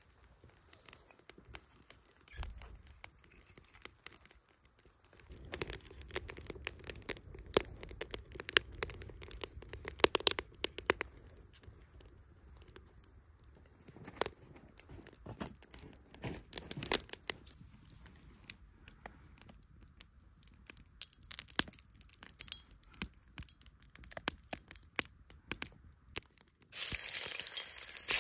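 Wood fire crackling and popping in a small brick stove, with irregular sharp clicks. Near the end, raw meat drops into a hot cast-iron kazan and starts sizzling loudly.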